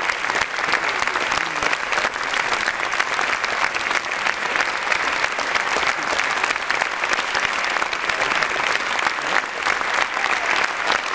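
Concert audience applauding steadily: dense, even clapping with no breaks.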